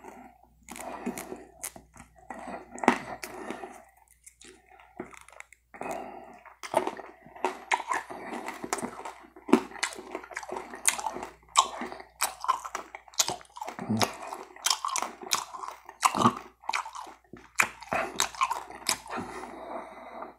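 Close-miked mouth sounds of chewing and sucking candy: a dense run of wet clicks and smacks with short pauses.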